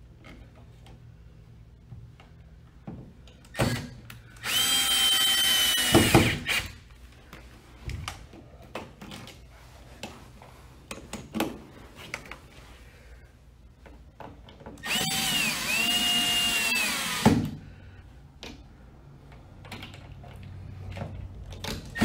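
Cordless drill/driver whining in two runs of about two seconds each, driving the mounting screws of a GFCI outlet into the wall box; the pitch sags as each screw draws tight. Light clicks and handling knocks between the runs.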